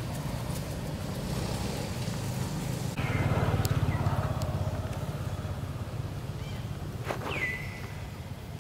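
A low, steady motor hum, louder for a couple of seconds about three seconds in, with two short high-pitched calls that drop in pitch and level off, about four seconds apart.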